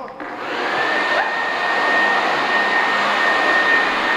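Electric blower motor switched on, spinning up over about half a second into a steady rushing of air with a high, even whine.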